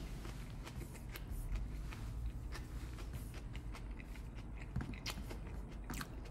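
A person chewing a mouthful of a steak burrito bowl with the mouth closed: a steady run of small wet mouth clicks and smacks.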